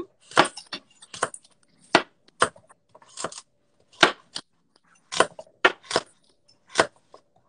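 Chef's knife slicing raw carrots into rounds on a cutting board: a string of short, sharp knocks as the blade cuts through and strikes the board, about two a second and unevenly spaced.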